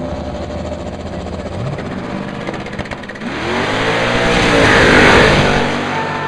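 Two drag racing cars, one a turbocharged Mustang notchback, idle and rev on the start line. About three seconds in they launch, and the engine noise swells to its loudest a couple of seconds later as they accelerate away down the strip, the pitch rising and falling through the gears.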